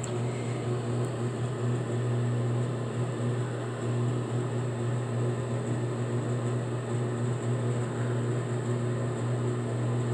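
Steady room hum: a low electrical drone with a thin high whine over an even hiss of air noise, unchanging throughout.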